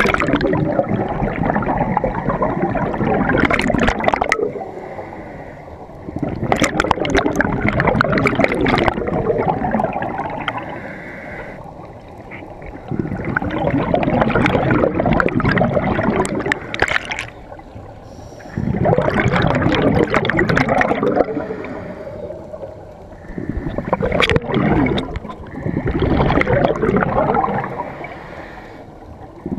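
Scuba divers' exhaled bubbles gurgling out of their regulators, heard underwater: loud bursts of bubbling a few seconds long, about every five to six seconds, with quieter gaps for the inhale.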